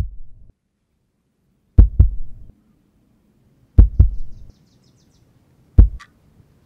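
Heartbeat sound effect: deep double thumps, lub-dub, repeating about every two seconds.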